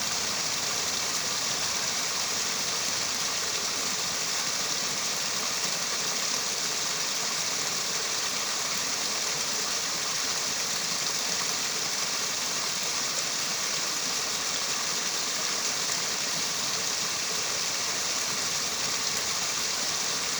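Mountain valley stream running: a steady, even rush of water with a bright hiss and no breaks.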